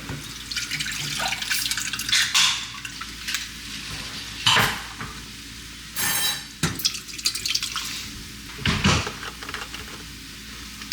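Pots, pans and utensils clattering with several sharp clanks, over the steady sizzle of chicken strips frying in a pan.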